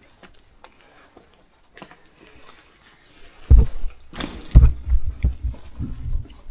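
Irregular low thuds and knocks of a person moving about and walking, starting about halfway in; before that only a few faint clicks.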